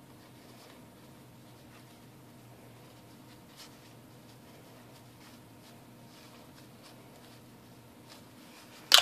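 Paper towel rustling faintly as it is handled and wiped over a silicone work mat, over a low steady hum. A single sharp knock right at the end.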